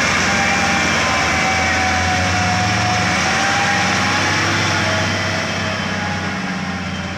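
Heavily loaded diesel truck towing a trailer, its engine labouring at full throttle as it crawls up a steep grade past the listener. It is loud and steady, then fades gradually over the last couple of seconds as the truck moves on.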